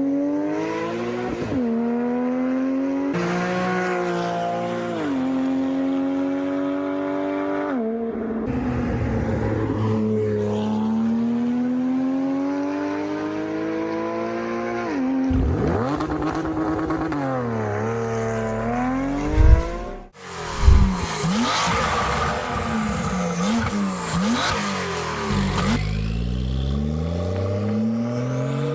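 Porsche 991 Targa 4S flat-six through an aftermarket Valvetronic Designs exhaust, accelerating hard through the gears: each rev climbs, then drops at the upshift, several times over. About two-thirds in there are two sharp cracks, then a Porsche 992 Carrera 4S twin-turbo flat-six with the same exhaust gives a string of quick rev blips and a final rising rev.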